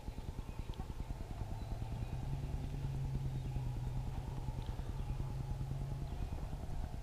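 Low, rapidly pulsing engine of a vehicle running at slow speed, with a steady low hum that comes in about two seconds in and fades near the end.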